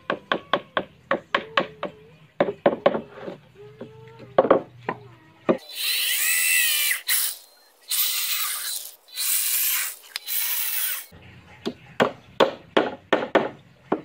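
Quick, sharp taps on the wooden frame, then a corded electric drill boring into the wood in four short loud bursts with a whining pitch, followed by more quick taps.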